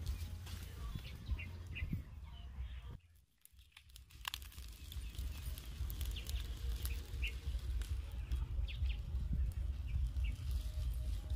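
Open wood fire crackling, with scattered sharp pops over a steady low rumble, and a few faint bird chirps. The sound drops almost out for about a second, three seconds in.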